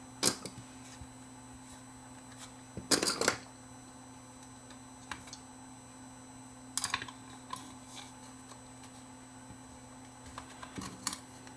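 Small plastic clicks and clatters as a security camera's plastic housing and circuit board are handled and fitted back together: a single click about a second in, a short burst of clicks around three seconds, more around seven seconds and a few near the end, over a faint steady hum.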